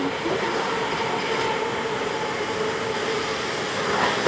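Running noise heard from inside a moving electric commuter train: a steady rumble of wheels on rail with a steady hum. About four seconds in it swells as another train passes close alongside on the next track.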